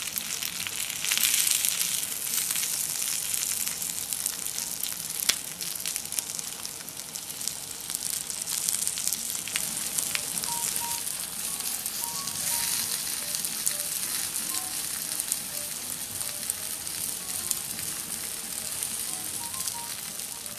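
Yuba (tofu skin) and vegetables sizzling in a shallow ceramic pot over a tabletop burner: a steady frying hiss with many small pops.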